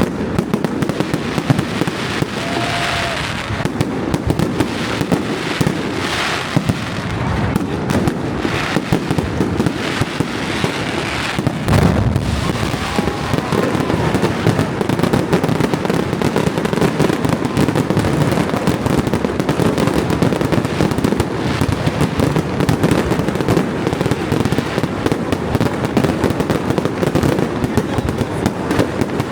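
Fireworks display going off in a continuous barrage: many overlapping bangs and crackles over a steady low rumble, with a few brief whistles.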